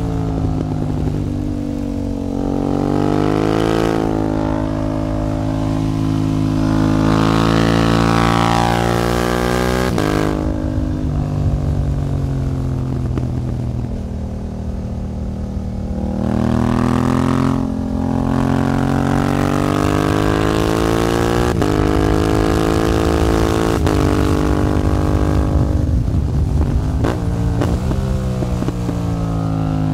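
Yamaha MT-07's parallel-twin engine through an Akrapovič track exhaust, accelerating hard, holding high revs, easing off and then pulling again. The note rises and falls with the throttle, with a quick upshift about two-thirds of the way through and wind noise underneath.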